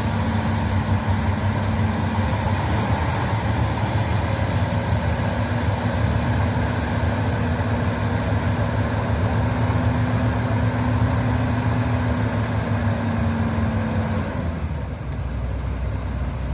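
Hitachi excavator's diesel engine running steadily, with a constant hum and a held tone. About fourteen seconds in the tone stops and the engine settles to a lower, quieter run.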